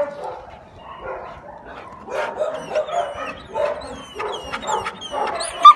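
Dog barking and yipping repeatedly, excited by cats on the other side of a wire fence: a run of short calls starting about two seconds in, with the loudest one near the end.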